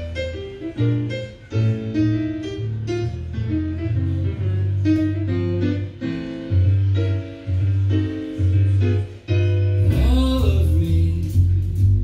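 A recorded song played over a vintage hi-fi stereo's loudspeakers: an instrumental introduction of plucked or struck notes over a deep, pulsing bass line, with a singing voice coming in about ten seconds in.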